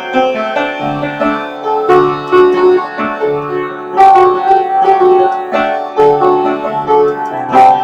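Instrumental music: a melody of struck or plucked notes over repeating low bass notes, with no voice.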